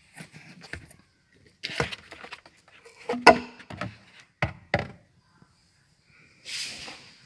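Hard plastic car-interior parts being handled: a string of separate knocks and clatters as the rear shelf speaker enclosure and trim pieces are moved, the loudest a little past the middle. It ends with a short rustle or scrape.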